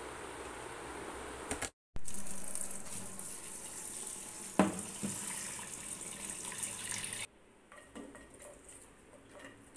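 A kitchen tap running onto rice and dal being rinsed in a bowl in a steel sink, with one sharp knock about halfway through. The water stops suddenly and it turns much quieter, with a few light taps as onion pieces drop into an empty nonstick pan.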